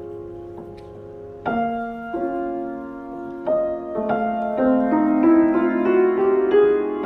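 Soft piano music with sustained chords. New chords come in about a second and a half in, then roughly every second, and the music grows louder in the second half.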